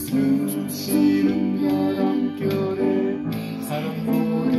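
Acoustic upright piano played with both hands: struck chords in the low-middle range with a melody above, the notes ringing on and overlapping.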